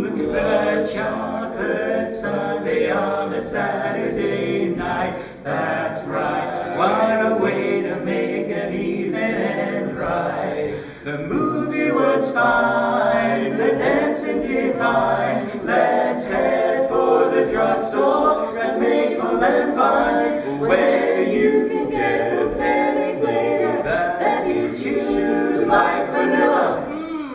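Mixed quartet of two women and two men singing a cappella in close four-part barbershop harmony, with short breaks between phrases about five and eleven seconds in.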